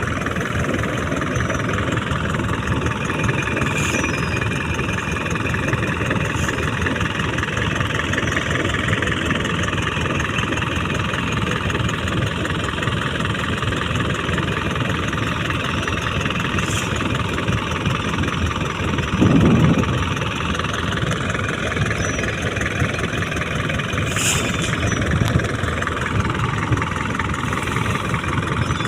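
Fishing boat's engine running steadily, with a few sharp clicks and a brief louder low thud about two-thirds of the way through.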